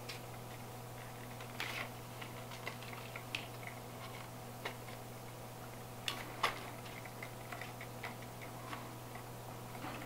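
Faint, scattered clicks and taps of plastic parts being handled as a handheld camera gimbal is fitted onto its extension rod and the mount clamp is tightened, over a steady low hum.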